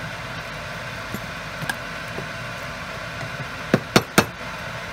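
Wooden spoon stirring a pot of soup and knocking three times in quick succession against the stainless steel saucepan near the end, over a steady low hum.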